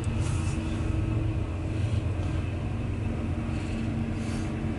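CSX intermodal freight train's double-stacked container cars rolling steadily past, a low even rumble heard from inside a car.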